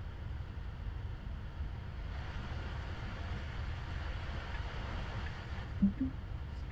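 Low, steady road and tyre rumble inside an electric Tesla's cabin as the car drives off under Full Self-Driving, a little fuller through the middle. A brief low sound comes about six seconds in.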